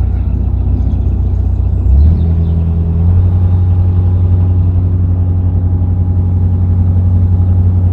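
Narrowboat engine running steadily with a low hum; about two seconds in its note shifts, and from about three seconds in it runs a little louder and more evenly, as the revs are raised.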